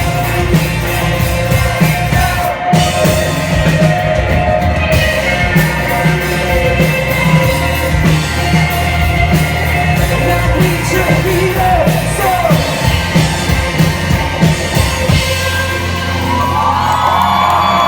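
Live rock band playing loudly, with drums, guitars and singing, and crowd shouts and whoops mixed in.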